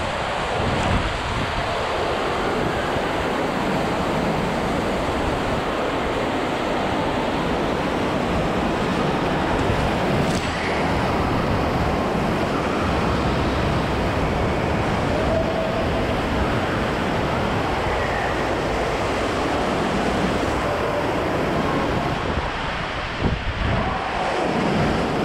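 Steady loud rush of water and spray on a bowl water slide, heard from a camera carried by the rider as they slide through the enclosed tube and circle the bowl with its water jets. There is a brief break in the rush near the end as the rider drops toward the centre.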